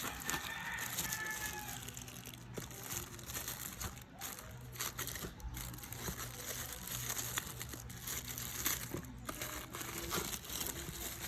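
Plastic packaging crinkling and rustling in the hands as a box is unpacked, with many small irregular crackles.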